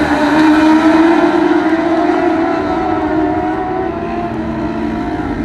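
A pack of dwarf race cars' engines running at high revs as they lap the oval, a steady, high-pitched whine that eases slightly partway through as the pack pulls away into the far end of the track.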